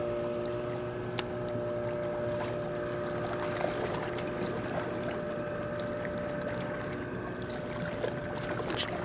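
Steady hum of a boat engine running at one unchanging pitch, over a wash of wind and water noise, with a single sharp click about a second in.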